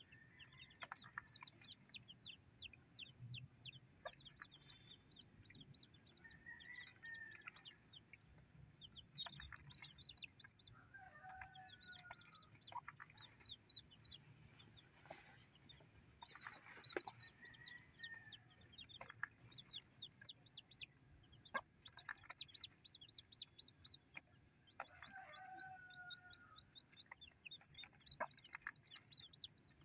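Newly hatched native chicks peeping in quick runs of short high chirps, while the mother hen gives low clucking calls every several seconds. A few soft taps come in between.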